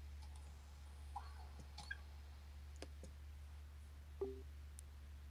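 A few scattered computer mouse clicks over a steady low hum, the loudest about four seconds in with a brief low tone.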